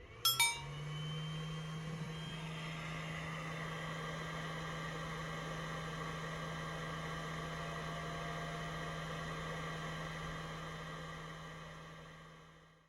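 Portable 12 V car fridge-freezer's compressor running with a steady hum, after a short click at the start; the hum fades away near the end.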